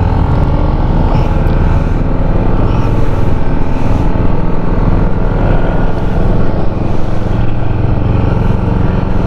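Yamaha XMAX scooter engine running steadily under way, with a steady rush of wind and road noise over the microphone.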